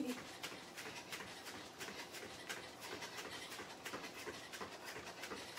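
Quick, even footfalls of high knees running in place on a rubber gym mat, about three or four a second, with hard breathing.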